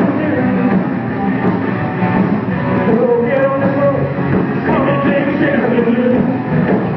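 A live rock band playing loudly, with a singer's voice over the band.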